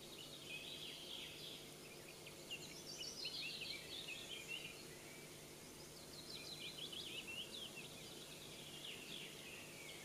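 Songbirds singing: several phrases of quick, mostly falling high notes, one after another, over a faint steady low hum.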